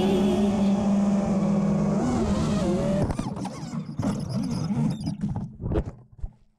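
FPV quadcopter's BrotherHobby 2207.5 2400 kV motors whining steadily, then swinging up and down in pitch, heard from the onboard GoPro. From about three seconds in, the sound turns ragged as the props hit apple tree branches, then it fades, with a few sharp knocks as the quad crashes into the grass, and cuts off just before the end.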